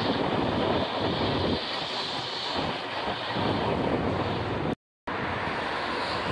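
Steady rumble and hiss of a regional passenger train's coaches rolling past on the tracks, with the low rumble pulsing as the cars go by. The sound drops out for a split second about three-quarters through, then goes on as an even rumble of distant rail and city traffic.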